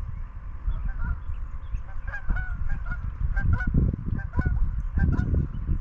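A flock of geese honking in flight: many short, overlapping honks, coming in irregular clusters.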